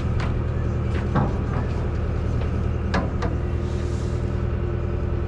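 A fishing boat's engine running with a steady low drone, with a few short, sharp clicks or knocks over it.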